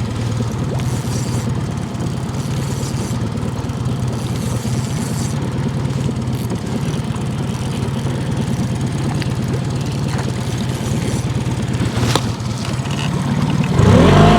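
Boat's outboard motor running steadily at low speed, a constant hum, swelling louder near the end.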